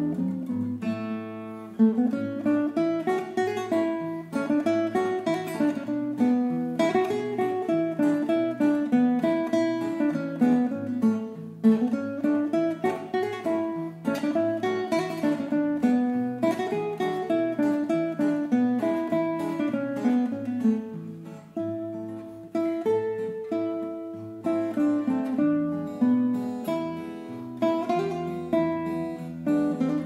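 A classical guitar and an acoustic guitar playing together: plucked notes in repeated rising and falling runs over a picked accompaniment.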